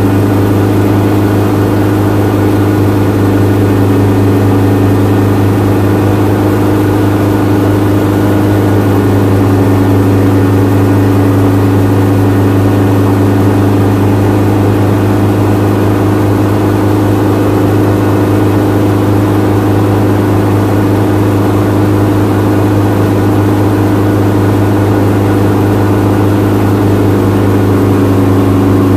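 Helicopter engine and rotor running steadily, heard loud from inside the cabin, with a strong low drone and a steady hum above it.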